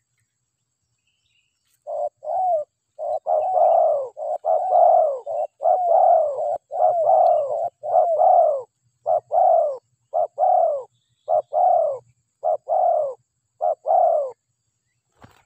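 Spotted dove cooing: a long run of short arched coos, two or three a second, beginning about two seconds in and stopping shortly before the end.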